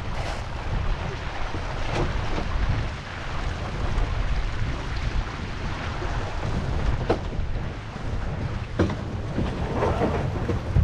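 Wind buffeting the microphone of a camera mounted low on an MC Scow sailboat's hull, over water rushing past the hull as it sails through chop. Several sharp splashes of spray hit the hull along the way.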